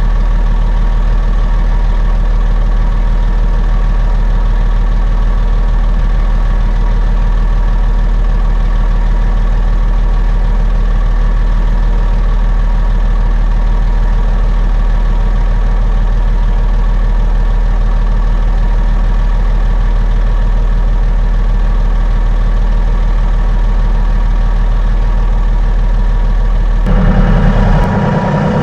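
Truck engine running steadily, a low drone with a constant pitch. Near the end the sound changes and grows louder.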